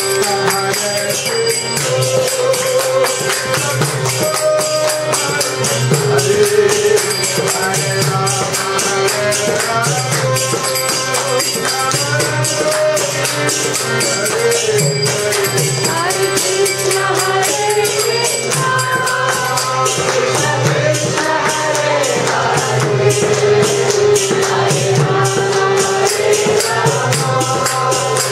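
Kirtan: men singing a devotional chant in unison over a harmonium. Small hand cymbals jingle in a fast, steady rhythm alongside clapping.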